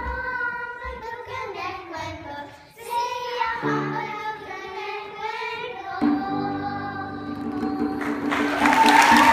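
Children's choir singing, ending on a long held note, then applause breaks out about eight seconds in.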